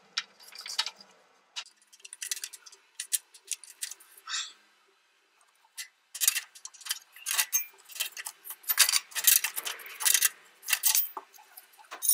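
Metal clicking and clinking of a wrench turning an exhaust sensor out of its threads, in irregular clusters with a pause of about a second and a half near the middle.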